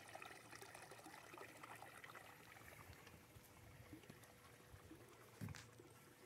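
Near silence: faint trickling and lapping of water, with a single low thump about five and a half seconds in.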